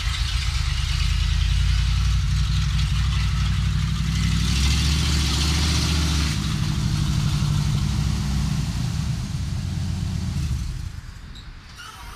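An SUV's engine running as it drives up a gravel road and pulls to a stop, with tyre and road noise. The sound drops away about a second before the end as the vehicle comes to rest, and a few light clicks follow.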